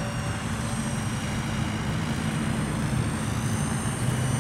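Mikado Logo 690 electric radio-controlled helicopter in flight: a steady rotor drone with a thin, high motor whine above it.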